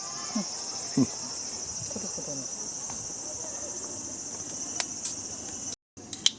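Steady chorus of crickets, a continuous high-pitched trill, with a few brief knocks and clicks over it. The sound cuts out for a moment near the end.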